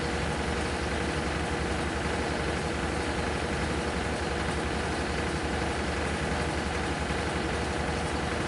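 Washing machine in its spin cycle: a steady whirring hum that keeps an even level throughout. It is spinning normally, as a spin cycle is supposed to.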